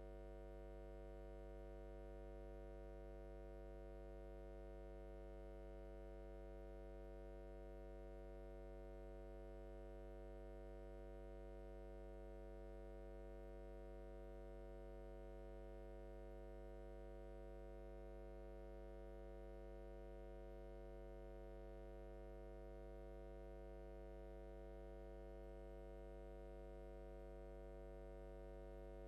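Faint, steady electrical hum made of several constant tones, one deep and others higher, with no change at all.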